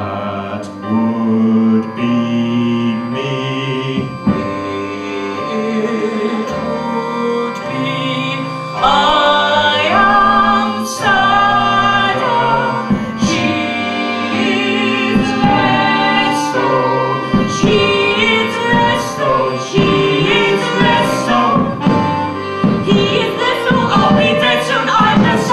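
A song sung live on stage by two performers over a small band of keyboard and drums, with drum strikes in the second half.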